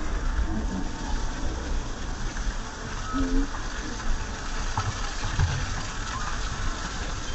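Water from a hose jetting onto an elephant's back and splashing down onto wet paving: a steady gushing hiss.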